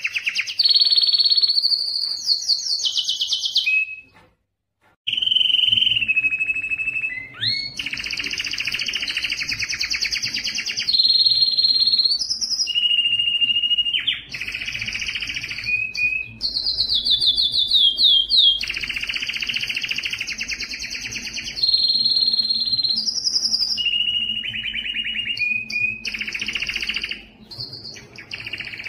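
Male canary in breeding condition singing a long song of rapid trills and rolls, changing to a new repeated phrase every second or two, some phrases sliding up or down in pitch. The song breaks off briefly about four seconds in, then goes on.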